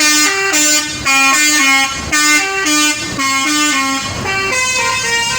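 A bus's Basuri 'telolet' musical air horn playing a quick tune of stepped notes, the phrase repeating four times, about once a second. After about four seconds the tune gives way to a steadier horn sound.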